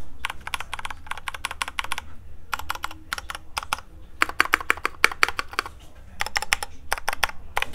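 Typing on a Keychron mechanical keyboard for a sound test: quick runs of keystroke clacks in bursts, separated by short pauses.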